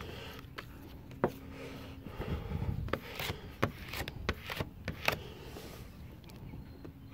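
Plastic hard-card squeegee rubbing and scraping over window tint film on a car's rear glass, with several sharp clicks and taps as the card is worked and lifted.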